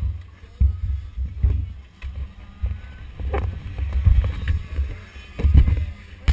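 Wind buffeting a helmet-mounted action camera's microphone: a deep, uneven rumble that swells and drops. A single sharp knock comes about three and a half seconds in.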